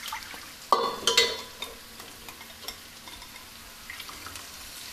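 Thin, watery paste being poured into a pan of hot spiced oil, setting off a soft, steady sizzle. About a second in there are two sharp clinks of utensils, with a short ring after each.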